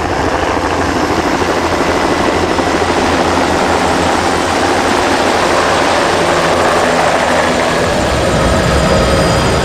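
Helicopter flying low close by: a loud, steady turbine engine with the rapid beat of the main rotor blades.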